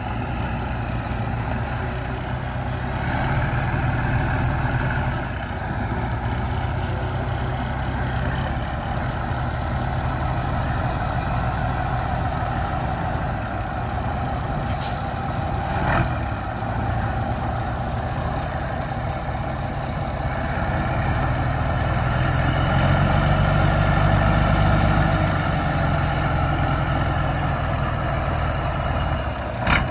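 Heavy truck engine running steadily. It grows a little louder for a few seconds about two-thirds of the way through. There is one sharp knock about halfway through.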